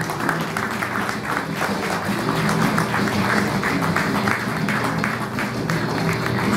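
Applause from a small audience and the cast, many hands clapping quickly and evenly, with music playing underneath.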